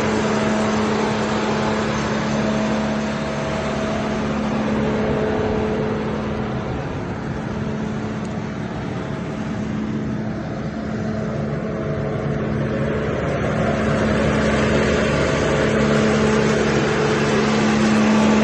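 John Deere 310D backhoe loader's diesel engine running steadily, easing off a little in the middle and picking up again toward the end, with a faint whine coming and going.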